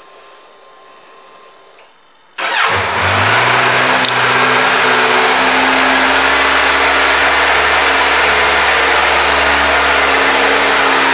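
2018 Kawasaki Z900's inline-four engine starting about two seconds in. It catches at once with a brief rise in revs, then settles into a steady idle.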